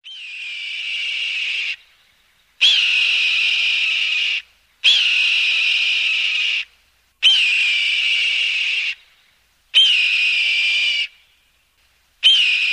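A hawk calling: six long, high-pitched screams, each opening with a short upward flick and then held on a steady note, repeated about every two and a half seconds.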